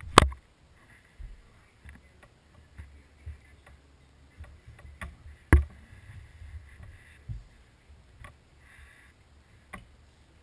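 Knocks and clicks of a small camera being handled at close range: a sharp loud click just after the start and another about five and a half seconds in, with softer knocks and low rumbling between.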